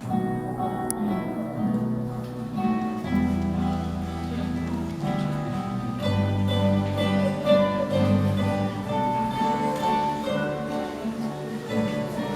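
Guitars playing: plucked and strummed chords with a melody line over low, held bass notes.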